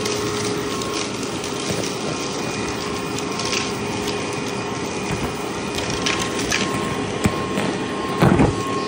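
Vacuum cleaner running with a steady whine while its bare hose sucks up fluff, confetti and grit from carpet. Small bits click and crackle as they go up the hose, and a louder knock comes near the end.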